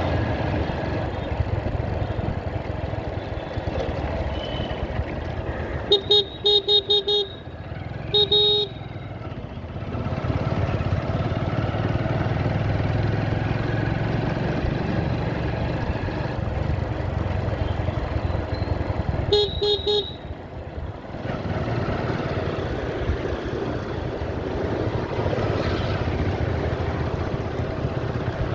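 Motorcycle riding along in traffic: steady engine and road noise. A horn toots in a quick string of short beeps about six seconds in, once more about two seconds later, and twice more near twenty seconds in.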